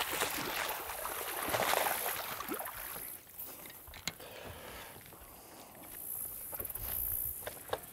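Hooked bass splashing and thrashing at the water's surface as it is fought to the boat, loudest in the first couple of seconds, then fading. A single sharp knock comes about four seconds in.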